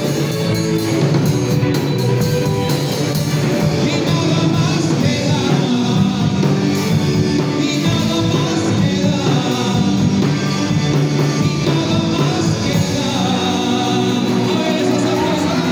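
Live rock band playing: electric bass, electric guitar and drum kit, with a man singing into a microphone through the PA.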